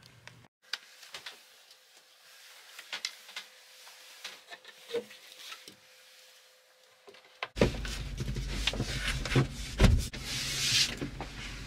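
Wooden engine-room access door on a sailboat being handled and fitted back into its bulkhead opening. There are light clicks and taps at first, then from about halfway louder rubbing and scraping of wood, with a few knocks as the panel goes into place.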